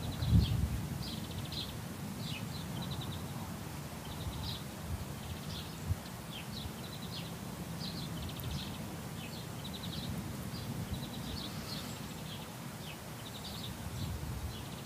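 Outdoor garden ambience: small songbirds chirping and trilling again and again over a steady low rumble. A single low thump sounds about half a second in.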